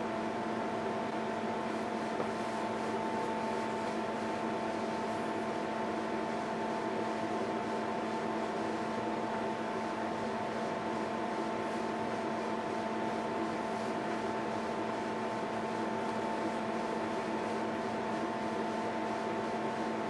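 A steady hum made of several constant tones over a faint hiss, unchanging throughout.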